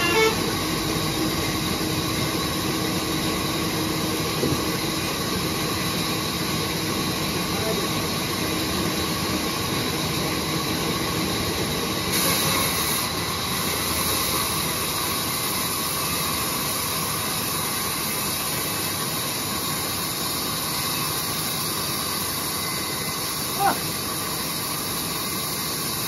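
Large sawmill band saw running steadily as a mango wood plank is fed through it, an even mechanical hiss and hum with faint steady tones. A single sharp click comes near the end.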